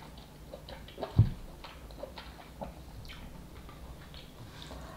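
Quiet eating sounds over a pot of instant ramen: scattered small clicks from chewing and from chopsticks and a wooden ladle in the pot, with one dull thump about a second in.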